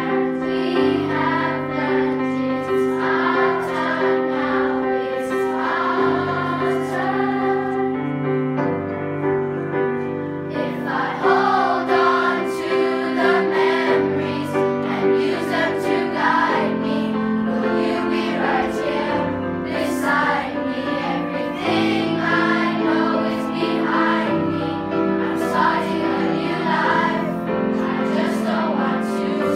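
Children's choir singing a song together over instrumental accompaniment, with held low chords changing every couple of seconds.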